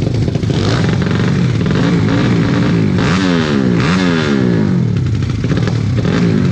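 Motorcycle engine revved repeatedly over a running idle, its pitch climbing and falling back each time, with the strongest blips about three and four seconds in.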